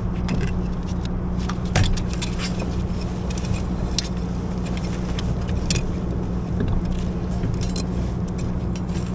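Scattered clicks, knocks and clatters of a crab net and crabs being handled on a kayak, the loudest knock just before two seconds in, over a steady low motor-like hum.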